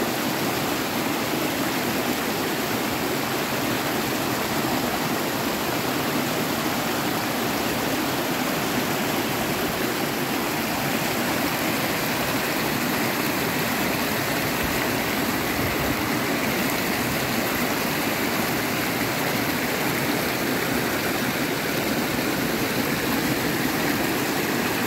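River water rushing over rocks in a steady flow.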